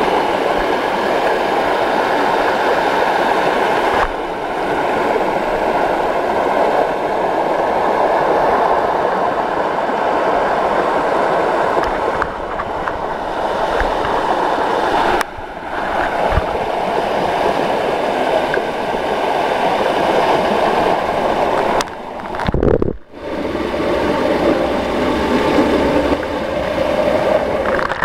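Water falling over a concrete dam and spilling down rock, a loud steady rush close to the microphone. It dips briefly about fifteen seconds in and breaks twice just over twenty seconds in.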